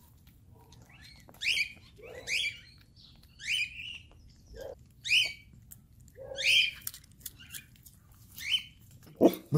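An animal's short, high-pitched squeaky call, repeated about once a second, eight or so times.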